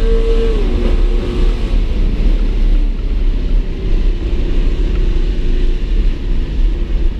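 Car engine heard from inside the cabin at high revs during a hard acceleration run. Its note drops in pitch about half a second in, then settles to a lower, steadier tone under loud road and wind noise.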